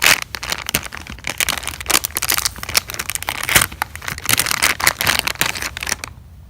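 Plastic packaging crinkling and crackling as it is handled and opened, a dense run of irregular crackles that stops about six seconds in.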